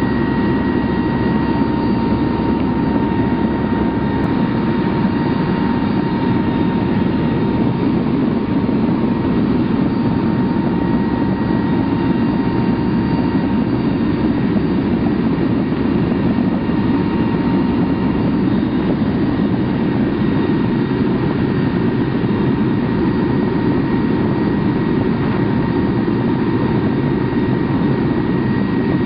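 Steady loud engine roar inside the cargo hold of a military transport aircraft in flight, with a thin steady high tone held over it.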